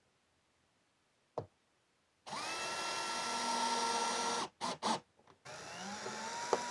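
Hilti cordless drill driver running under load against the side of a plastic Packout box: one steady two-second run of the motor about two seconds in, two short trigger blips, then a second run whose whine rises in pitch and holds. A single click comes just before the first run.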